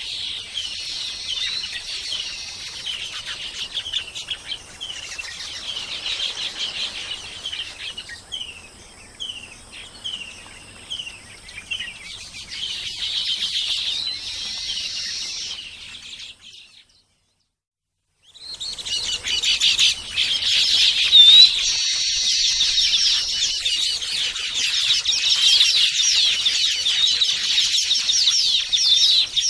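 Baya weavers chirping and chattering: a run of short, high chirps several to the second, breaking off for about a second and a half just past halfway, then resuming as a denser chorus of overlapping chirps.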